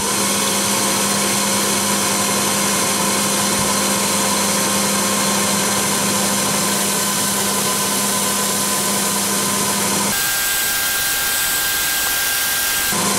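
Electric shower booster pump running, noisy: it cuts in abruptly as the cold water is turned on, a steady motor hum over a loud hiss. About ten seconds in the hum shifts to a higher tone.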